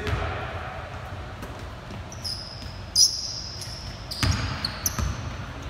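A basketball bouncing on a hardwood gym floor as a player dribbles, with the loudest bounce about three seconds in. Short high sneaker squeaks on the floor come in between the bounces, and the sound echoes around the large gym.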